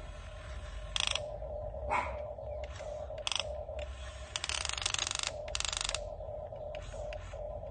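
Small geared mechanism clicking and rasping over a steady hum, with a longer ratcheting buzz about halfway through.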